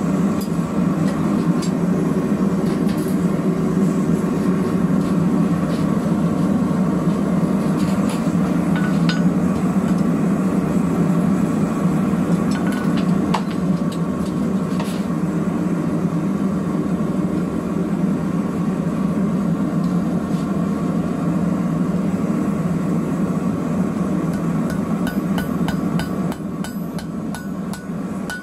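A hand hammer striking a hot rivet on a steel anvil in a continuous run of blows, peening it over to join the door knocker.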